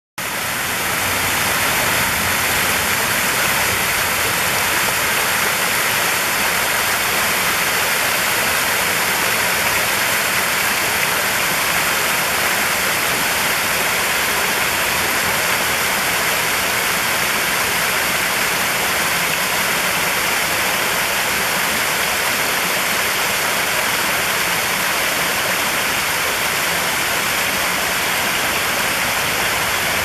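Water from a small rock waterfall cascading over boulders into a pool: a steady rushing splash that fades in over the first second or two.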